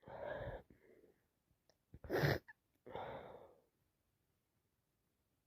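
A woman with a head cold sneezing: a gasping in-breath, then a short, sharp sneeze about two seconds in, followed by a breathy exhale.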